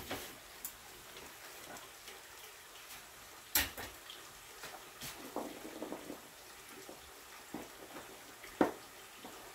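Quiet kitchen with a few light knocks and clicks of dishes or utensils being handled, the sharpest about three and a half seconds in and another near the end.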